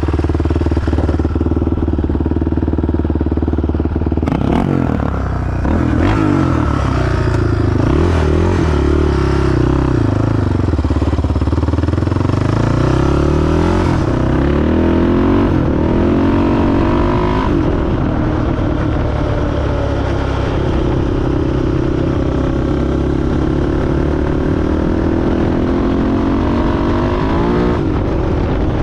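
Yamaha Raptor 660R ATV's single-cylinder four-stroke engine being ridden, running steadily at first, then revving up and down again and again as the throttle is worked, settling to a steady pull past the middle and rising briefly near the end. It keeps running without cutting out.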